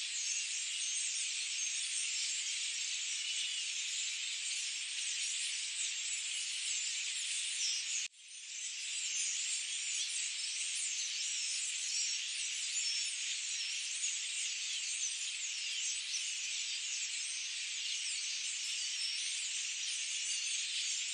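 Dense, high-pitched chorus of many forest birds chirping. About eight seconds in it cuts out suddenly and fades back up, an edit in the recording.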